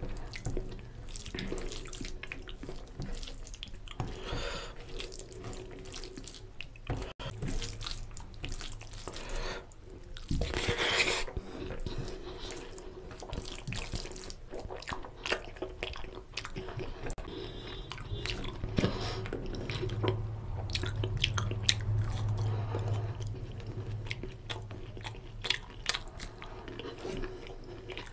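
Close-miked wet mixing sounds of fingers working rice into oily mutton curry gravy on a steel plate, with many short clicks. A louder stretch comes about eleven seconds in.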